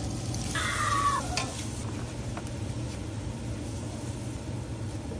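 Butter sauce sizzling in an enameled cast-iron pot as it is stirred with a wooden spoon, over a steady low hum. About half a second in comes one short high cry that falls away at its end.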